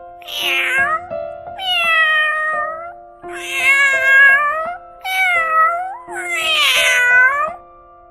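Domestic cat meowing five times in a row, each meow a drawn-out call of about a second, over background music with held keyboard notes.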